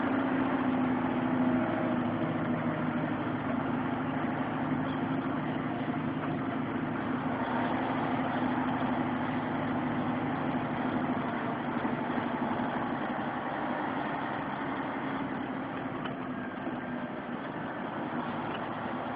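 Vehicle engine and road noise heard from inside the cab while driving, a steady hum that gradually quietens as the vehicle slows.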